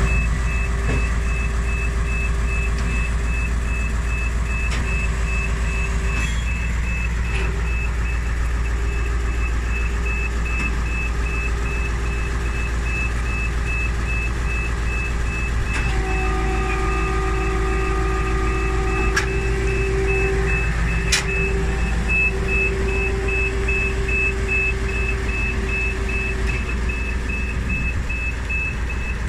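Mercedes 1726 turntable-ladder fire engine running at a steady idle with a low diesel rumble, while an electronic warning beeper sounds in quick, evenly spaced beeps. Around the middle a higher, steady whine joins in for a few seconds.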